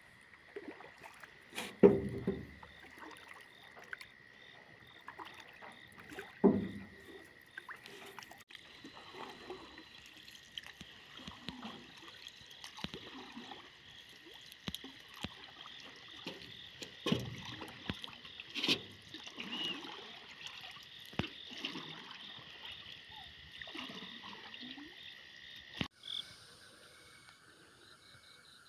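A fishing net being hauled by hand out of the water into a wooden boat: irregular splashes and drips of water with knocks against the hull, the loudest about two and six seconds in. Under it runs a steady high-pitched chorus of night creatures, which changes suddenly near the end.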